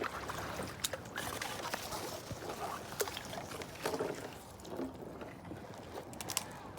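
Kayak paddle strokes splashing and water dripping off the blade, with scattered small knocks and splashes.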